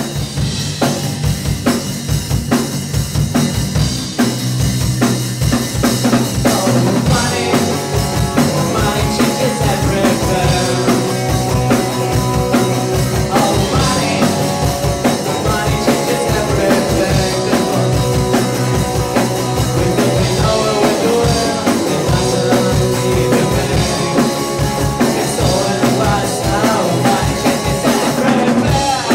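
Live rock band playing electric guitar, bass guitar and drum kit, with a man singing. The playing grows louder and fuller about four seconds in.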